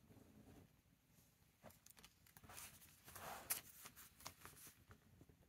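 Faint rustle of Stalogy notebook pages being turned and smoothed by hand, loudest about halfway through, with a few soft ticks.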